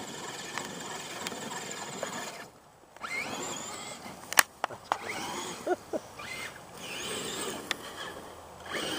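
Electric motor of a battery-powered RC truck whining, rising and falling in pitch as it is throttled, with a short quiet gap partway through and a few sharp knocks about halfway.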